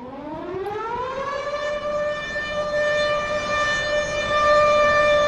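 Civil defence siren winding up: its pitch rises over about the first two seconds, then holds one steady tone that grows louder.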